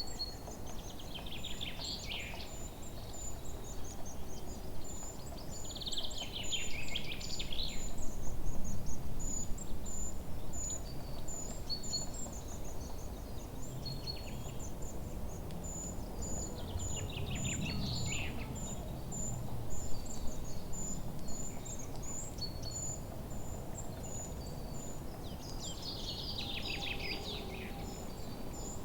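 Birds chirping: a steady run of short high chirps, with louder bursts of song every several seconds, over a low background rumble.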